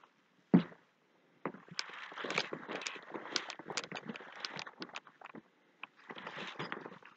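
Plastic bubble wrap crinkling and rustling in quick irregular crackles as a costume made of it moves, after a single thump about half a second in.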